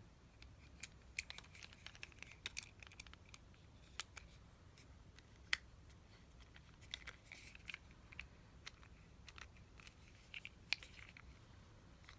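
Quiet small-parts bench work: scattered sharp clicks and taps, with short scraping and rustling between them, as tools and small parts are handled. The two loudest clicks fall about five and a half and about ten and a half seconds in.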